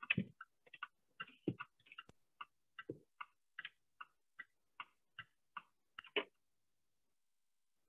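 A run of short, sharp clicks at an even pace of about two and a half a second, with a few duller knocks mixed in; they stop about six seconds in.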